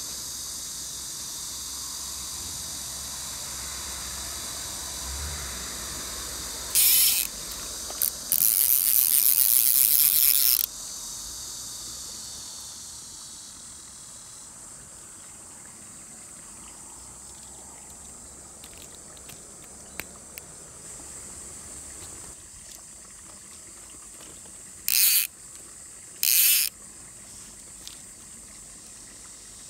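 Fly reel's click-and-pawl drag ratcheting in bursts as line is pulled off: one short burst, then a longer run of about two seconds, and two more short bursts near the end. Insects buzz steadily in the background through the first half.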